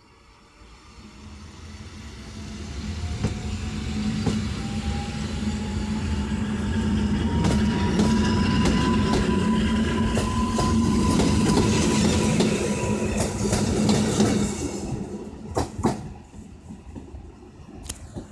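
EN57AL electric multiple unit accelerating past, with a steady hum and a traction-motor whine that rises in pitch and then holds. Sharp wheel clicks over rail joints come scattered through the middle, and the sound falls away near the end as the train leaves.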